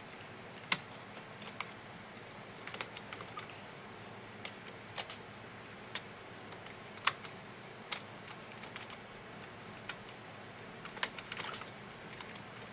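Light, irregular clicks and taps of a metal hand tool and the machine's needles against the bed of a plastic-bed knitting machine as long stitches are twisted by hand, needle by needle. A quick run of clicks comes near the end.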